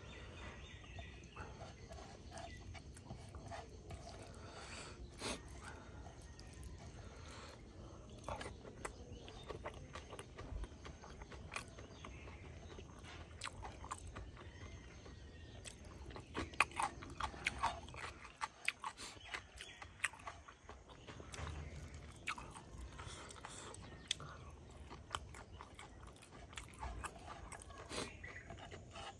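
A person chewing and crunching mouthfuls of rice with silkworm pupae and spiders, eaten by hand, in a series of short crisp crunches. The crunches come thickest a little past halfway.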